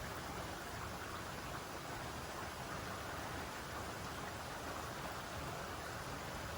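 Steady spring rain falling, an even hiss of rainfall that does not let up.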